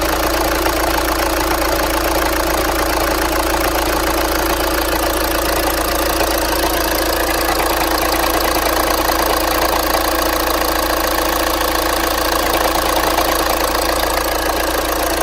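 2012 Volkswagen Jetta TDI's 2.0-litre four-cylinder turbodiesel idling steadily with an engine knock, which the owner links to the dual-mass flywheel.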